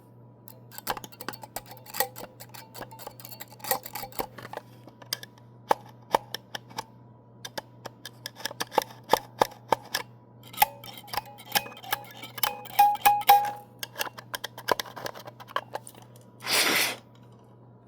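Small clicks and taps of batteries and a toy car's plastic battery compartment being handled while the battery terminals are cleaned. A squeaky scraping stretch comes in the middle, and a short hiss comes about a second before the end.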